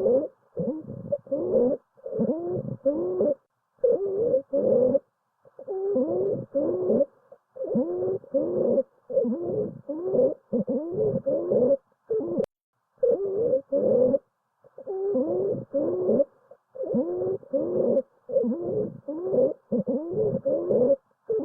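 Stridor: a pitched, musical breath sound repeating in short pulses about twice a second, each with a rising pitch. It is the sign of a narrowed upper airway.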